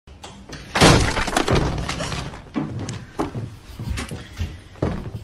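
A loud crash about a second in, with a shattering, clattering burst like something knocked over and breaking, followed by several separate knocks.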